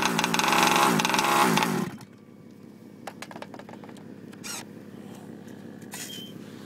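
Small two-stroke engine of a 30.5 cc Baja 5T RC truck revving in quick repeated throttle blips, its pitch rising and falling. About two seconds in the engine sound drops away suddenly, leaving a faint low hum and a few clicks.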